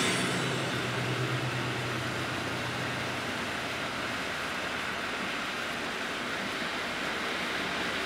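Steady road and engine noise heard inside a car driving on a snow-covered highway, with a low hum that fades out about three and a half seconds in.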